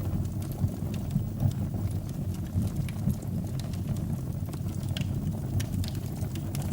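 Fire burning in a fireplace: a steady low rumble with many scattered sharp crackles and pops.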